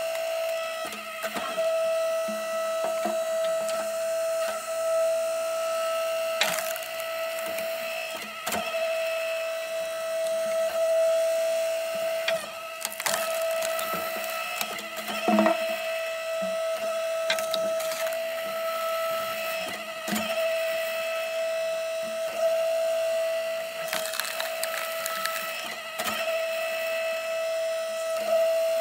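Split Fire 1165 electric log splitter running steadily, its ram pushing short hickory pieces through the wedge. The wood splits with sharp cracks, many of them at irregular intervals, over the machine's constant whine.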